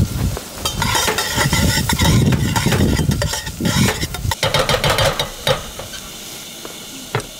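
A metal spoon stirring and scraping in a stainless steel pot on a propane camp stove, with the contents sizzling. The scraping gives a ringing metallic sound and dies away about three-quarters of the way through, leaving a softer steady hiss.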